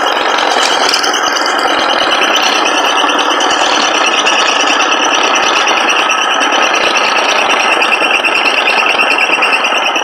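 Homemade scroll saw driven by a refrigerator motor running steadily, its blade rattling rapidly up and down as it cuts into a sheet.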